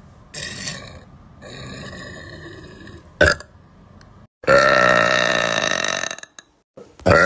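A woman burping loudly on purpose. One long burp runs for under two seconds about halfway through, and another starts just at the end, after softer sounds and a sharp click.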